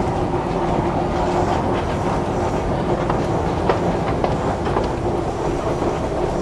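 Metro train running in an underground station: a steady rumble with an even hum, and a few sharp clicks partway through.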